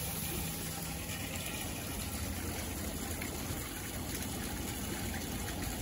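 Water splashing and running steadily into a garden pond.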